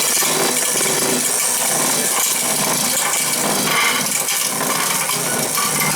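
Handheld vibrator running steadily, rattling as it is pressed down hard to compact dry refractory lining material in an induction furnace.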